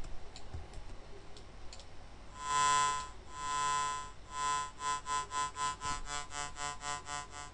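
Sawtooth oscillator tone at 145 Hz from a Pure Data synth patch, its volume pulsing as a sine wave modulates it: about once a second at first, then about four times a second once the sine's frequency is raised. The sine is offset by one so it stays positive, giving a pulsing volume rather than ring modulation. A few soft mouse clicks come before the tone starts.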